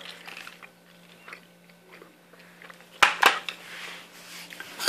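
Handling noise as paintball marker parts are picked up and set down: faint small clicks, then a few sharp clicks and knocks about three seconds in, with light clinking of metal parts near the end.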